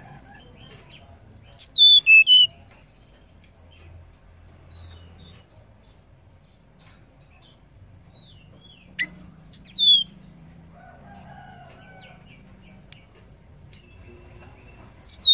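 Female hill blue flycatcher (tledekan) singing short phrases of loud, high whistled notes, each phrase falling in pitch. A phrase comes about a second and a half in, another about nine seconds in, and a third begins at the very end.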